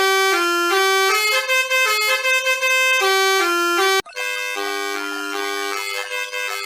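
Musical bus horn playing a melody of held notes that step up and down, one note at a time. About four seconds in, it cuts to a different musical horn tune that sounds two notes together.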